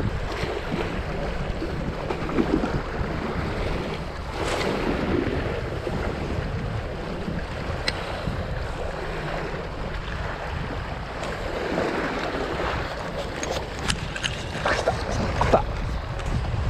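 Wind buffeting the microphone over small waves washing against a rocky shoreline, with a few sharp clicks and knocks from the rod and spinning reel being handled near the end.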